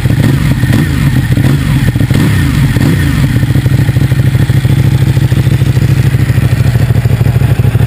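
Ducati Panigale 899's 898 cc Superquadro V-twin idling while it warms up after a cold start, a rapid, even pulsing exhaust beat. The idle wavers slightly over the first few seconds, then settles steady.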